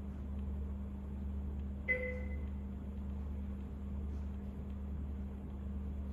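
A single short electronic chime about two seconds in, ringing out and fading within half a second, over a steady low electrical hum. The chime recurs at a regular interval of a few seconds.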